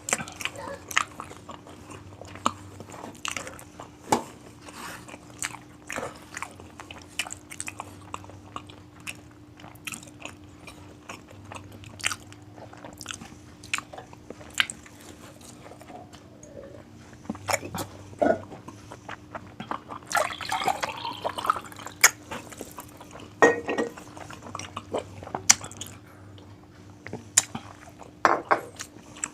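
Close-miked eating: a person biting and chewing crunchy food, with irregular sharp crunches and mouth clicks, over a faint steady hum.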